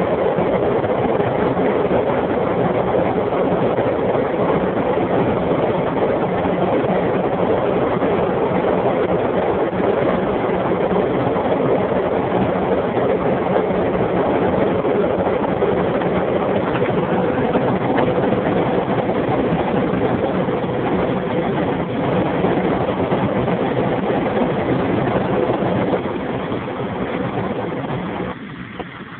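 Cabin sound of a Jaguar X-Type 2.5 V6 at full speed, about 230 km/h: loud, steady wind and road roar with an even engine hum underneath. It gets noticeably quieter in the last few seconds.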